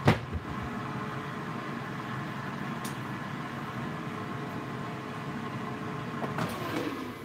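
GoWISE USA air fryer running with a steady fan hum, starting to fade near the end as the basket is pulled out. There is a single sharp knock at the start.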